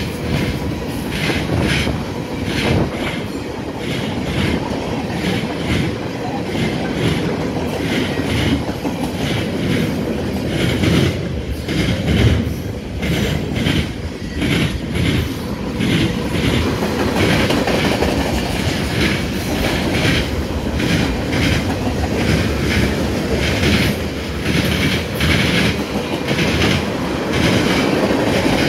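Freight train cars rolling past close by: a steady rumble with a repeated clickety-clack of wheels over the rail joints.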